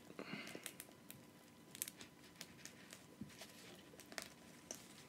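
Faint, scattered crackles and clicks of crawfish shells being broken and peeled by hand.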